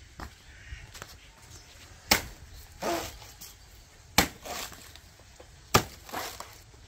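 Curved machete chopping into a felled green banana trunk: three sharp chops about two seconds apart, with fainter sounds after the first two.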